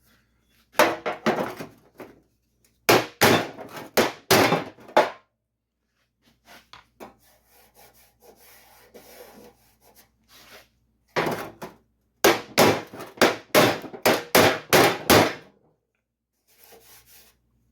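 Hand metalwork on the sheet steel of a 1951 Chevy pickup tailgate as it is straightened: bursts of short, quick strokes, several a second, separated by pauses and quieter scraping.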